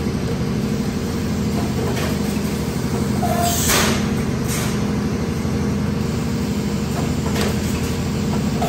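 Automatic stretch blow molding machine for plastic jars running: a steady low mechanical hum broken by short hisses of compressed air, about four of them, the loudest about three and a half seconds in, as the pneumatic blowing cycle vents.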